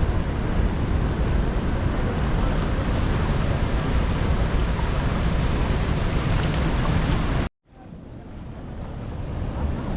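Steady rushing roar of the Rhine Falls' water, heavy in the low end, with wind on the microphone. It cuts out abruptly about seven and a half seconds in, then comes back quietly and swells up again.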